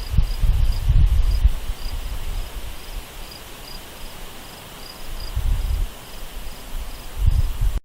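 Insect chirping steadily, a high pulse about three times a second, over a low rumble that swells at the start, about five seconds in and again near the end.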